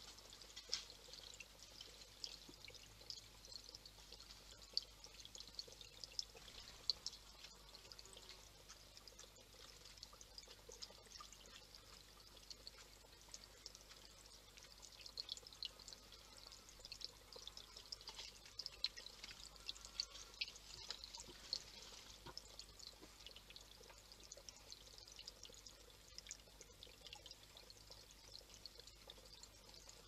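Small stone garden fountain trickling and splashing into its basin, faint and steady, with many small irregular drips.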